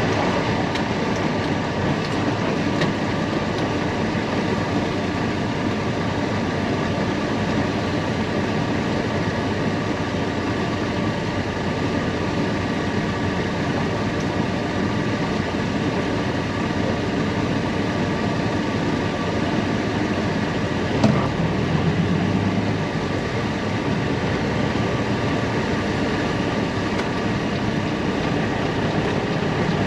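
Steady rumble and hum of a heavy vehicle running, with one sharp knock about two-thirds of the way through, after which the low rumble grows a little stronger.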